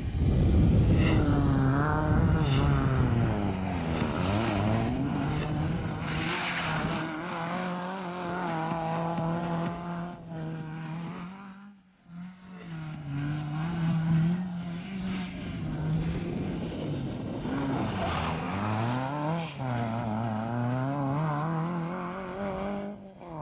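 Small rally car engines revving hard and changing gear, the pitch climbing and falling again and again as the cars accelerate. The sound drops out briefly about twelve seconds in.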